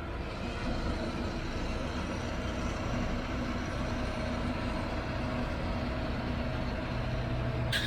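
Off-road vehicle running steadily, a continuous mechanical hum with faint steady tones; a short sharp click near the end.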